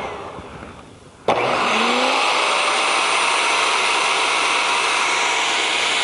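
Garden shredder chewing thick plum tree branch pieces. Its motor sound fades over about the first second, then comes back abruptly with a rising whine and runs steadily after that.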